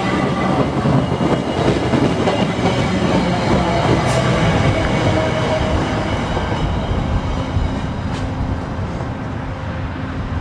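VIA Rail passenger train's coaches rolling past close by on the rails, a continuous rumble of wheels on track, then the train pulling away and its sound slowly fading over the last few seconds.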